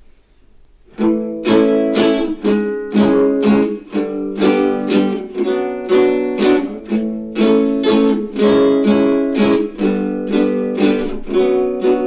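Acoustic guitar strummed in a steady rhythm, starting about a second in: the instrumental intro to a song, before the singing begins.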